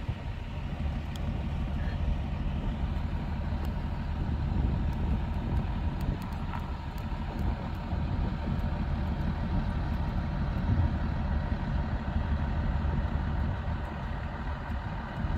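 Diesel engine of an aerial ladder fire truck running steadily: a continuous low rumble with a faint steady tone above it.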